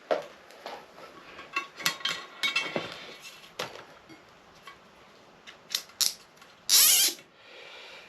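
Large nylon cable ties being threaded and pulled tight through their ratchet heads around a motorcycle tyre: scattered clicks and short ratcheting zips. The loudest is one quick zip a little before the end. The ties are there to pinch the tyre's two beads together for fitting.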